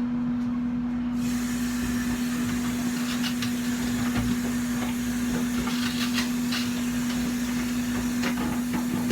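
Light clicks and knocks of plastic microwave cookware pieces being handled, over a steady low hum.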